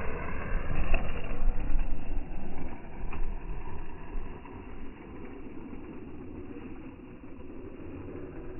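Electric radio-controlled off-road truck driving through mud, the motor and churning tyres loud and uneven for about the first four seconds, then dropping to a quieter steady rumble.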